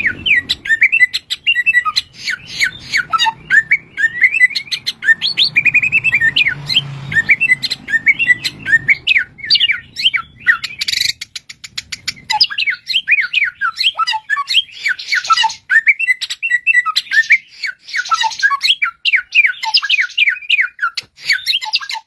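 Horsfield's bushlark (branjangan) singing a fast, continuous, varied song of quick whistled sweeps and chattering notes, the mimicking song this bird is kept for, with scratchy notes mixed in several times.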